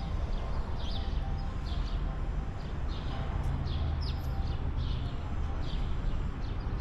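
Birds chirping in the courtyard trees: short falling chirps, about two a second, over a steady low rumble.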